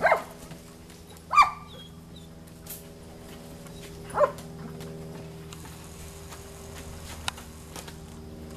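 A dog barking: three short, sharp barks, the second about a second and a half after the first and the third about three seconds later, over a faint steady hum.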